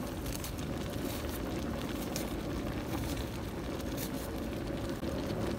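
Steady low roar of an outdoor gas burner heating a pot of stew, with a few faint clicks over it.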